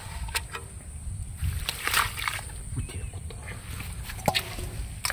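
Bare hands squelching and splashing in shallow mud and water, groping for fish, with irregular wet slaps and sloshes.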